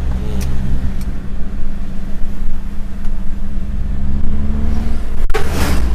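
Toyota Innova's 2KD diesel engine running at a steady pace while driving, heard as a steady low drone through its new full-system aftermarket exhaust with resonator. A short loud rush of noise cuts in near the end.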